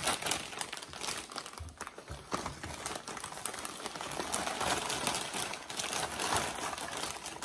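Doritos chip bag crinkling continuously as it is pulled open and tipped over a plate.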